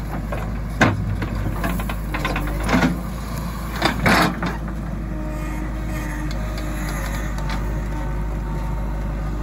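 JCB 3DX backhoe loader's diesel engine running steadily under hydraulic load. Loud clanks and scrapes of the bucket and soil come about a second in and again around three and four seconds in.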